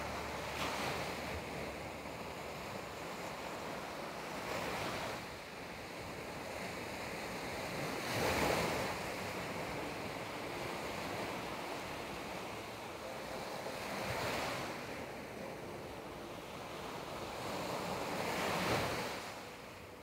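Sea waves breaking on the shore: a steady rush of surf that swells five times as waves wash in, a few seconds apart, the loudest about eight seconds in and near the end.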